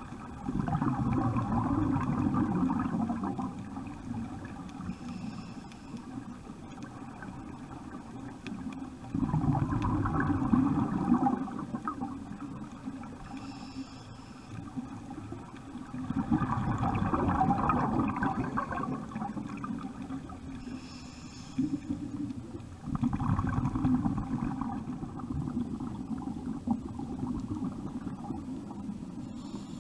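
Scuba diver breathing through a regulator underwater: four long bubbling exhalations, roughly every seven seconds, each with a faint short hiss of inhalation shortly before the next.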